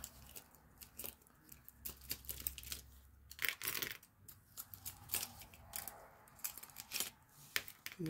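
Plastic mechanical pencils clicking and clacking together as they are pulled out of a mesh zipper pouch and set down on a cutting mat; light, irregular taps with a busier cluster about three seconds in.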